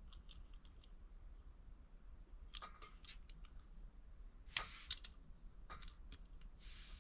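Faint handling sounds: a few light clicks and taps of small hard objects being picked up and set down, with the loudest pair of clicks about halfway through.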